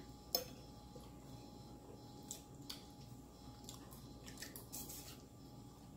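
Person chewing food, with faint scattered wet mouth clicks and smacks; the sharpest click comes about a third of a second in.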